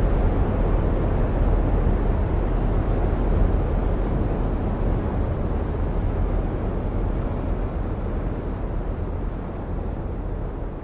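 Steady low rushing roar of wind and spraying powder snow as a snowboard carves through deep powder, easing off slightly near the end.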